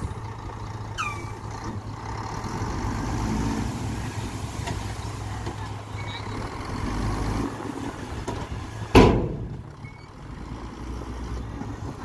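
Dump truck's diesel engine running steadily with its tipper body raised, unloading soil. About nine seconds in comes a sudden loud hiss of air from the air brakes, dying away over about a second.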